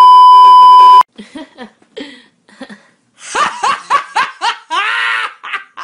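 A loud, steady test-tone beep over colour bars for about a second, cutting off suddenly. After a short pause, a young woman laughs hard in quick bursts, ending in one long drawn-out laugh near the end.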